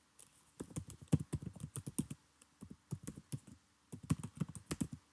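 Typing on a computer keyboard: a quick run of key clicks, broken by a couple of short pauses.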